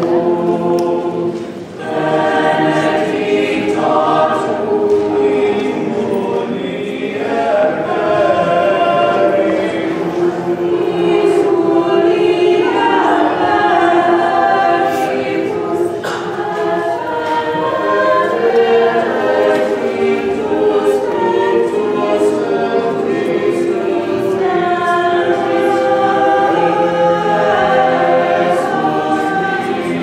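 Mixed choir of men and women singing a cappella in sustained, overlapping parts, with a short break about two seconds in.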